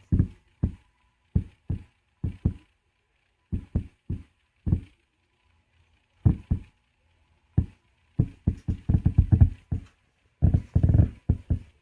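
Subwoofer of a Klipsch Flexus Core 200 soundbar system making irregular short, deep pops and knocks: scattered single pops at first, then dense rapid clusters in the second half. The popping is a fault that remains even with a new subwoofer, new audio cables, a conditioning power supply and a new source.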